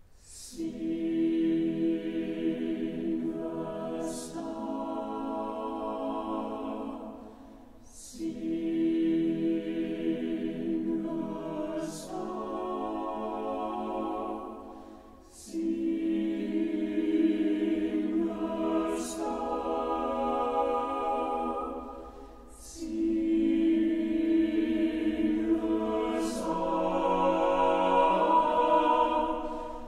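Mixed chamber choir singing a cappella in a church: sustained chords in phrases of about four seconds, each opening with a short hissing consonant, with brief lulls between the longer phrases.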